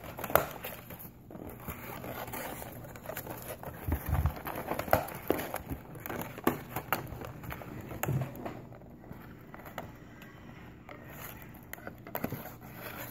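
Scattered light clicks, knocks and rustles of a toy's plastic and cardboard packaging being handled while twist ties are undone.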